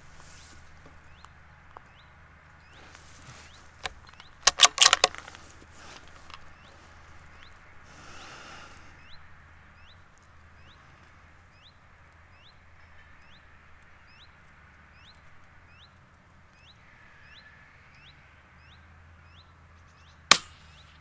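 A single sharp crack of a .22 LR rifle shot about 20 seconds in, with a quick run of loud sharp clicks around 4 to 5 seconds in. Under these runs a steady low hum and a faint short rising chirp that repeats about twice a second.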